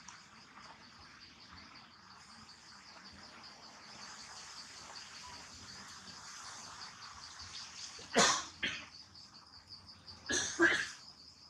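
Insects chirring steadily in a fast, even pulse. About eight seconds in and again about ten and a half seconds in, two loud, short, sudden noises break over them.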